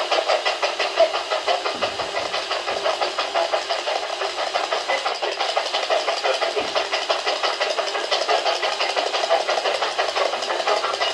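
Spirit box (radio-sweep device) scanning rapidly through stations, giving a steady, fast, even chopping of radio static.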